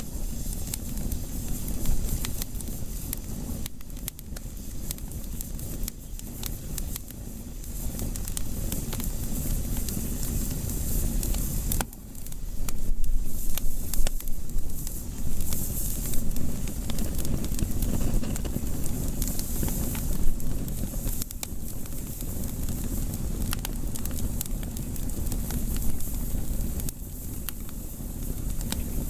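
Firewood fire burning, with dense crackling and sharp pops over a steady hiss and low rumble. The loudest pops come about halfway through.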